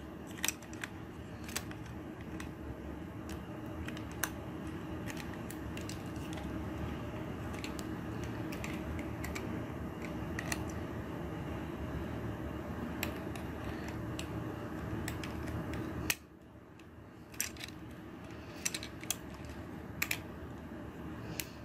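Hard plastic clicks and snaps of a Transformers Studio Series Blitzwing action figure being handled, its parts and weapon pegged and clicked into place: a dozen or so sharp, irregular clicks over a steady low hum that drops away near the end.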